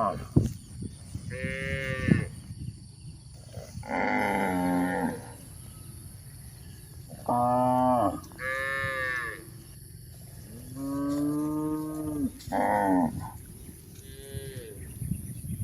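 Cattle mooing repeatedly: about seven separate calls of around a second each, some lower and some higher-pitched, with short pauses between them.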